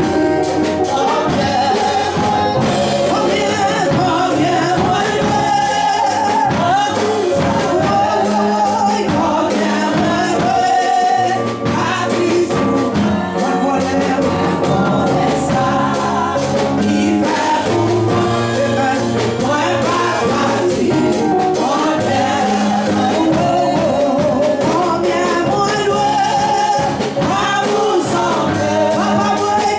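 Gospel music: singing over a band with a steady drum beat.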